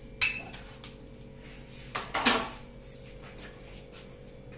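Stainless steel plate and spoon clinking as things are set down and moved on the plate: one sharp clank about a quarter second in, then two more close together about two seconds in, the second ringing briefly.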